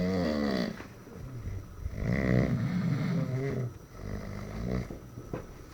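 Snoring: a run of snores, each about a second long and roughly two seconds apart, the strongest at the start and about two seconds in. The sleeper keeps snoring despite a first attempt to stop it.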